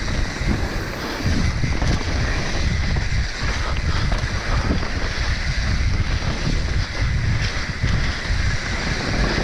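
Wind buffeting the microphone and tyres rumbling over a dirt trail as a mountain bike descends at speed, with short knocks and rattles from the bike over bumps.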